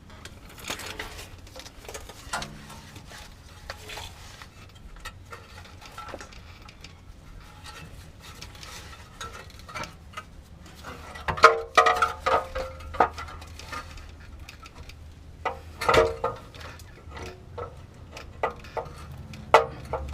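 Scattered metallic clinks and knocks from exhaust parts and hand tools being handled, with a louder clatter about eleven seconds in and another sharp knock about sixteen seconds in.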